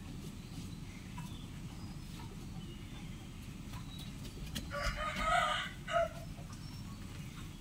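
A rooster crowing once, a single cock-a-doodle-doo about a second and a half long starting past the middle, over a steady low background rumble.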